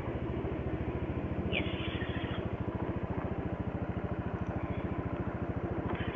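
Small motorbike engine idling steadily with an even, fast beat, the bike standing still.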